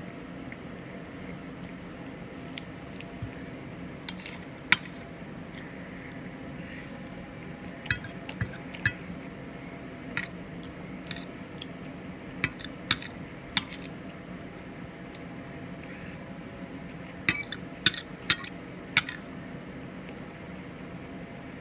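Metal fork clinking and scraping against a dinner plate while picking up mixed vegetables: scattered sharp clicks, several in quick clusters, over a steady low hum.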